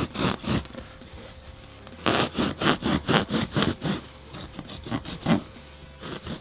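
Bread knife sawing through mattress foam in runs of quick back-and-forth strokes, about four a second, with a pause of a second or so between runs.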